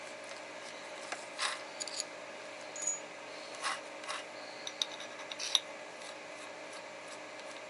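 A drill bit being fitted and tightened in a drill chuck by hand: a few short, irregular clicks and rubbing scrapes of metal parts.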